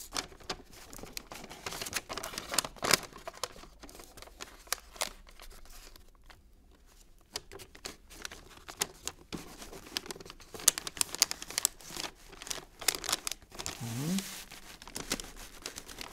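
Wrapping paper crinkling and crackling as hands fold and press its loose end flat against the sides of a cardboard box, with a quieter spell in the middle.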